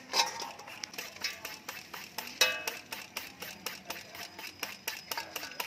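A handheld papaya shredder scraping down a whole peeled green papaya in quick repeated strokes, several a second, as the shreds fall into a steel bowl. About two and a half seconds in, the shredder strikes the bowl with a ringing metallic clink.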